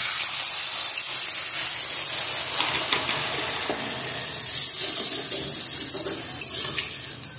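Water poured from a plastic bottle into a hot kadai of fried spice paste, hissing and sizzling as it hits the hot oil. A metal spatula scrapes and stirs the pan a few times from about two and a half seconds in.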